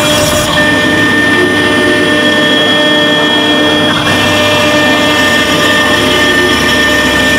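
CNC engraving router's spindle running with a steady whine of several held tones while its small end mill cuts a shoe-sole mold pattern into a metal block.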